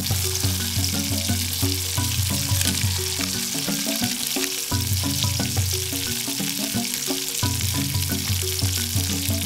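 Salted fish sizzling loudly as it fries in hot oil in a wok, over background music with a steady, repeating bass line.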